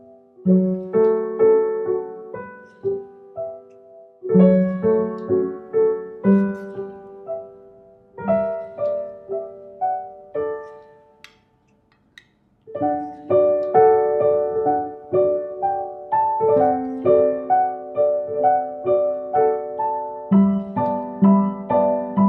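Background piano music with single notes that ring and fade, breaking off briefly about halfway through before it starts again.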